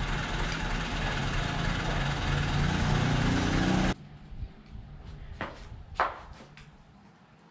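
A loud, steady mechanical rumble, engine-like, with a low hum whose pitch rises just before it cuts off abruptly about four seconds in. After that come a few light clicks and taps.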